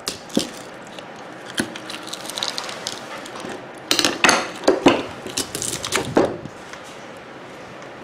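Scattered clinks, scrapes and knocks of a screwdriver working at the wire on a microwave oven transformer and of metal tools and the transformer being handled on a wooden workbench. The loudest knocks come in a cluster about four to five seconds in and again around six seconds.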